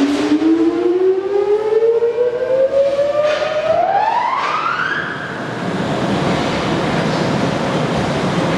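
Large Nishimori engine lathe's spindle drive starting up: a whine rising steadily in pitch for about five seconds as it comes up to speed, then settling into a steady running noise.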